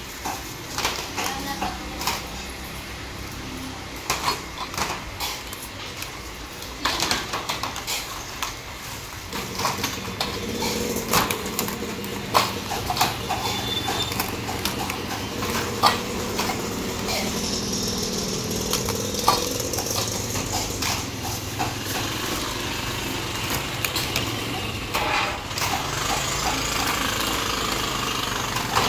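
Stainless-steel rice cups clinking and knocking against each other and the steamer tray as they are lifted out and stacked. About a third of the way in, a steady engine-like drone starts up under the clinks and keeps going.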